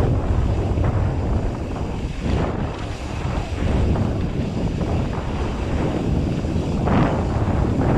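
Wind buffeting the microphone of a mountain bike's camera over the rumble of tyres rolling on a dirt singletrack, with louder rushes of noise about two and a half seconds in and near the end.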